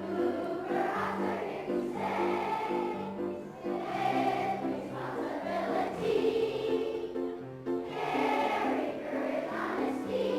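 A choir singing a song with instrumental accompaniment, held sung notes over a repeating pattern of accompanying notes.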